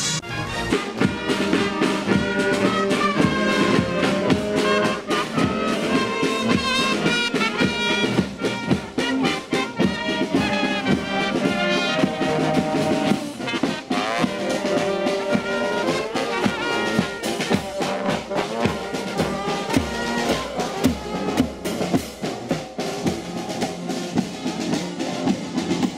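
Marching brass band with saxophones playing a march over a steady drum beat.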